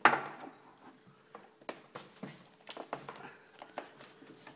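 One sharp knock, then small irregular metallic clicks and taps, about two a second, from pliers working a metal part in the splintered strike-plate recess of a kicked-in wooden door frame.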